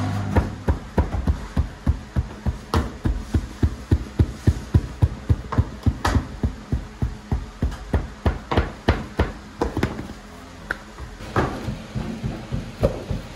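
Wooden bread stamp (chekich) tapped again and again into a round of flat dough on a wooden board: quick dull thumps, about three or four a second, with a short pause about ten seconds in.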